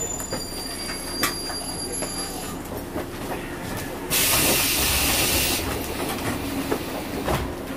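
A JR 115-series electric train stands at a platform, running with a steady low hum and scattered light clicks. About four seconds in comes the loudest sound: a burst of compressed-air hiss lasting about a second and a half.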